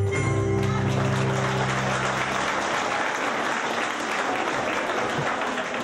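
Audience applauding as Greek folk dance music ends on a held final chord, which dies away about two and a half seconds in, leaving only the applause.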